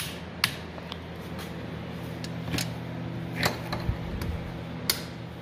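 Torque wrench tightening the new cylinder bolts to 42: a handful of sharp, irregularly spaced clicks over a low steady hum.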